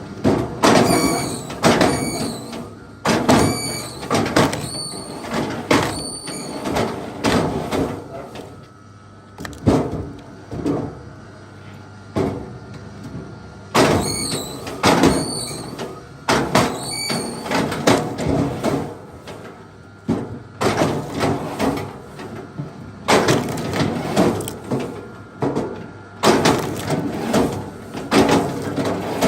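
Wood being worked by hand: irregular knocks and scraping, with high creaking squeaks in two bouts, near the start and again about halfway.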